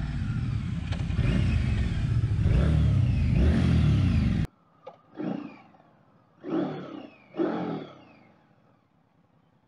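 2022 Indian Scout Rogue's liquid-cooled V-twin running steadily under way, with wind rushing past. It cuts off abruptly about four and a half seconds in, followed by three short revs about a second apart, each swelling and dying away.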